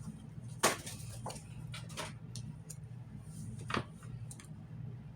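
Tarot cards being handled: a few scattered light taps and clicks over a low steady hum.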